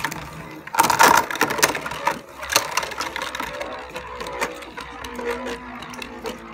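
Beyblade Burst spinning tops clashing and skittering in a plastic Beystadium: a run of sharp plastic clacks, loudest about a second in and again near two and a half seconds. After that, one top spins on with a lighter rattling while the other has stopped.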